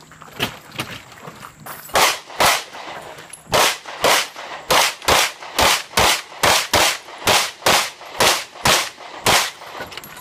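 Open-division race pistol firing a fast string of shots during a USPSA stage, about two a second and often in quick pairs. Two fainter reports come in the first second.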